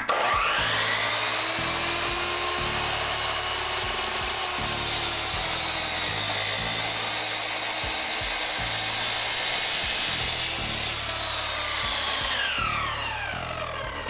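Sliding compound miter saw spinning up with a rising whine and cutting through a live-edge spalted maple board for about ten seconds, then the blade winding down with a falling whine near the end.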